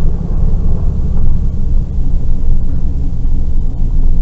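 Truck driving under load: a loud, steady, low rumble of engine and road noise.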